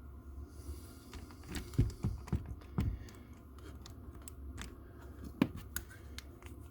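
Scattered light knocks and clicks of handling, over a low steady hum.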